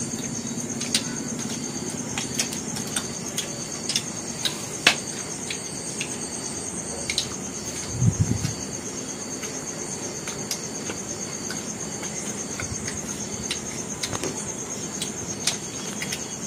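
Cricket trilling steadily, a continuous high pulsing note, with scattered small clicks and crackles from people eating pizza and flaky egg puffs, and a brief low sound about halfway through.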